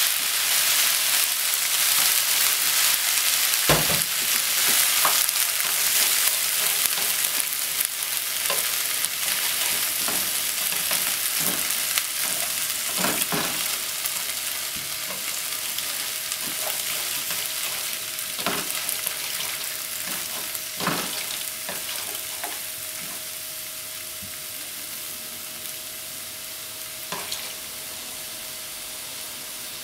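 Yakisoba noodles and cabbage sizzling in a frying pan while being stir-fried, with a few taps of a wooden spatula and then chopsticks against the pan. The sizzle slowly dies down.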